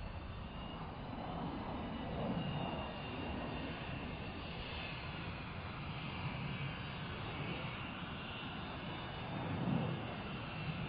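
Jet airliner engine noise: a steady rush with a faint high whine running through it.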